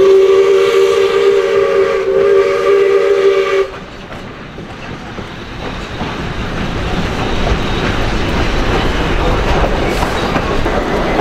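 Steam locomotive 621 sounding its chime whistle, a steady multi-note chord lasting nearly four seconds before cutting off sharply. After it, the train's running and rail noise continues, growing louder.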